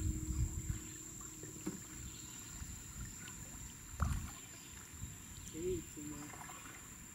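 Canoe being paddled on calm water: soft paddle strokes and scattered low knocks of the paddle against the canoe, the loudest about four seconds in.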